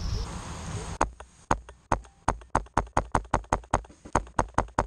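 Paintball marker firing a rapid string of sharp shots, about five a second, starting about a second in.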